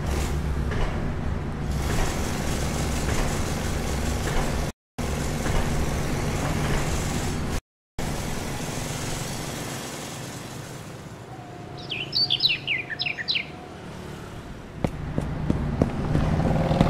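A steady low rumble of background noise, broken twice by brief dead silences, fades away. A bird then chirps a quick run of short descending notes, and the low rumble comes back near the end.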